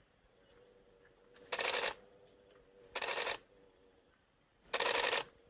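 An animal hissing: three short, harsh rasping bursts of about half a second each, roughly a second and a half apart.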